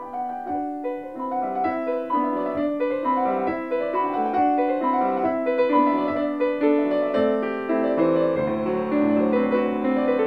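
Piano music, a steady flow of notes that grows a little louder over the first few seconds.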